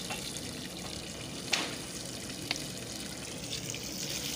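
Water gushing steadily from a submersible borewell pump's discharge pipe and splashing onto paving stones, the pump running and delivering water. Two brief sharp clicks sound about a second and a half and two and a half seconds in.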